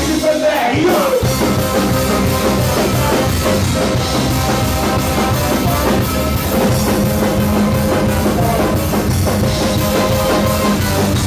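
Live ska-punk band playing loud and steady on drums, electric guitar, trumpet and trombone, with singing near the start.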